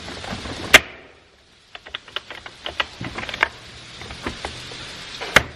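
Small clicks and taps of chainsaw parts being handled and pushed into place during reassembly, with the plastic shroud catching. There is a sharp snap about three-quarters of a second in, a brief lull, a scatter of light clicks, and another sharp snap near the end.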